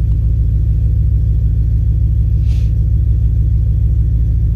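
BMW E92 M3's V8 engine idling: a steady low rumble with an even pulse, with a faint brief hiss about halfway through.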